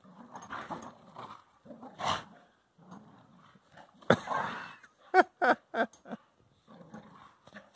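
Two dogs, a boxer and a white-and-brown dog, play-fighting: low play growls, then a louder growl about four seconds in. Three short barks follow in quick succession.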